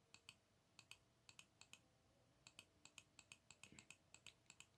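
Faint computer mouse clicks, mostly in quick pairs of press and release, about one pair every half second, placing polygon vertices one after another.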